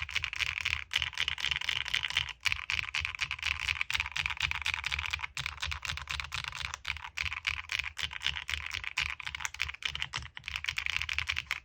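Fast, continuous typing on a Qwertykeys QK75 mechanical keyboard built with HMX Macchiato switches on a polycarbonate plate, with plate foam only and Osume keycaps: a dense run of key clicks, many strokes a second, stopping abruptly at the very end.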